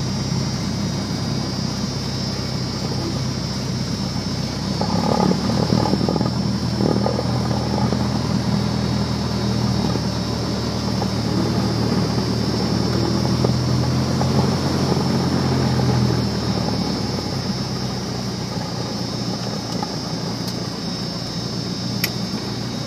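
Light aircraft's propeller engine running at low taxi power, heard from inside the cockpit. It comes up in power and gets louder about five seconds in, then eases back down about three-quarters of the way through.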